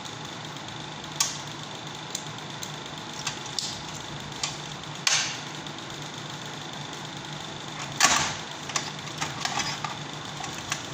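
Scattered sharp clicks and knocks of tools and parts being handled while working on a window air conditioner's control board, the loudest knock about eight seconds in and a quick run of small clicks near the end, over a steady low hum.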